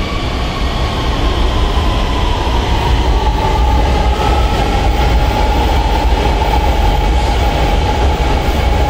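Lahore Orange Line metro train running along the track: a steady low rumble with a whine held near one pitch, growing louder over the first few seconds.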